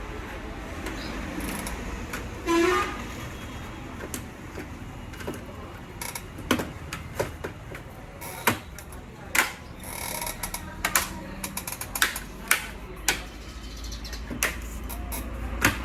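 Irregular sharp clicks and small knocks from about six seconds on as plastic laptop parts are handled and fitted back together during reassembly. A short toot comes about two and a half seconds in.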